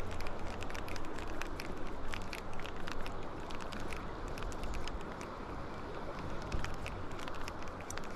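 River water rushing steadily, with many scattered light clicks and ticks throughout.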